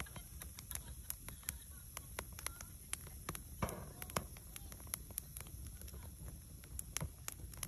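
Wood campfire crackling, with frequent sharp, irregular pops from the burning wood, over a low rumble of wind on the microphone.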